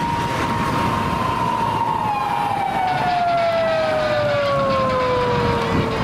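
Japanese police car siren wailing: one long tone that slides slowly down in pitch, over steady road noise from the expressway.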